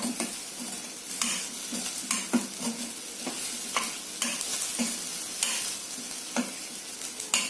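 A metal spoon stirs mashed raw banana in a pot on the stove, scraping against the pot irregularly, about once or twice a second, over a steady sizzle from the cooking food.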